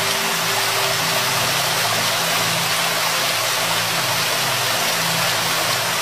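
Steady rushing of a waterfall, an even hiss of falling water that does not change, with faint low held tones underneath.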